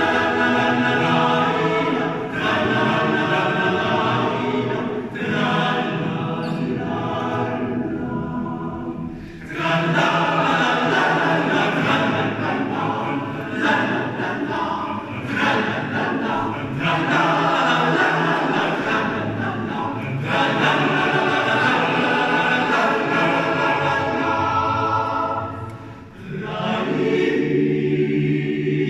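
Male voice choir singing a cappella in several parts, in sustained phrases with brief pauses for breath about nine seconds in and again near the end.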